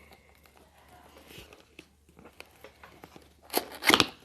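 Packaging being torn open by hand: small rustles and clicks, then a loud rip near the end.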